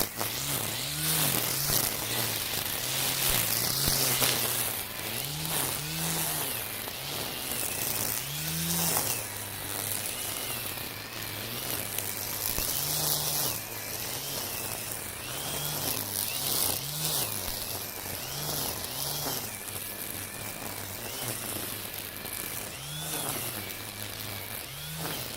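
Makita 40V cordless brushcutter with Oregon Flexiblade trimmer line cutting dense weeds. The motor's whine keeps dipping and recovering as the line bogs down in the thick growth, over a steady hiss of line thrashing grass.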